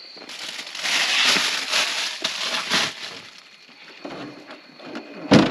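Rustling and crinkling handling noise with many small clicks, loudest in the first three seconds, then a single sharp thump near the end.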